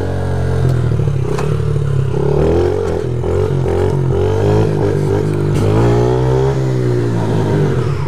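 Yamaha TTR50 pit bike's small four-stroke single-cylinder engine running as it is ridden, its pitch rising and falling with the throttle, with a few sharp knocks along the way.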